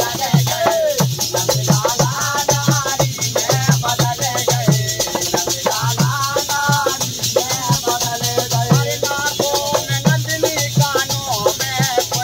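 A man singing a Hindi devotional folk song about Krishna, over a steady low beat and a continuous rattling, jingling hand percussion.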